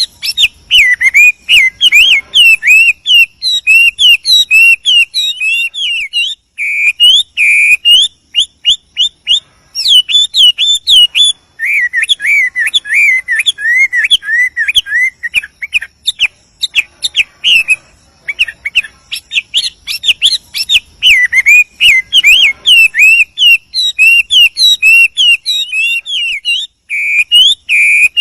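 Male Chinese hwamei singing: a long, fast run of varied whistled phrases and repeated notes, broken by short pauses.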